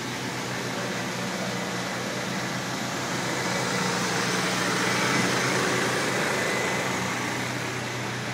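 1990 Dodge Dakota's 3.9-litre V6 idling steadily, growing louder midway.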